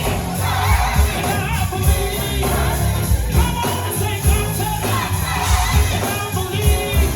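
Gospel choir singing with a live band, the drums and bass keeping a steady beat.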